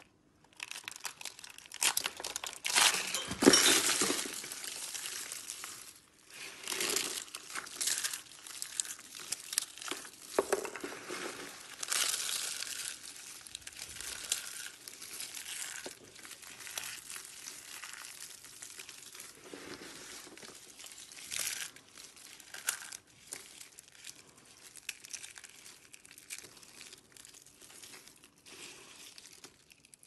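Dry rolled soap curls crackling and crumbling as hands crush a basket made of them, then scrunching handfuls of the broken soap flakes. Loudest a few seconds in, with further bursts of crunching and quieter rustling towards the end.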